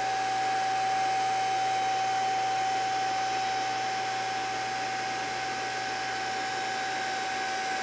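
Powered pump of a JD2 Model 32 tube bender running steadily with an even whine, driving the bend of a steel tube.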